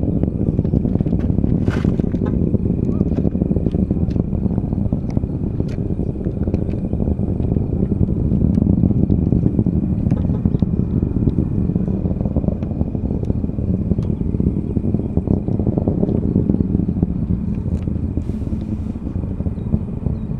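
Distant rumble of a SpaceX Falcon 9's first-stage engines after liftoff: a loud, steady, deep roar with scattered crackles through it.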